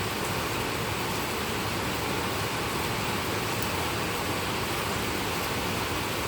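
Heavy rain falling steadily, an even hiss without let-up.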